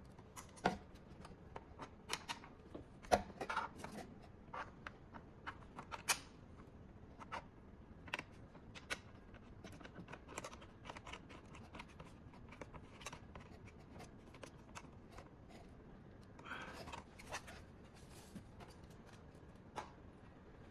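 Hands handling hard plastic parts: scattered clicks and knocks as a plastic stand is fitted to the back of a small monitor, with a short rustle of plastic packaging about two-thirds of the way through.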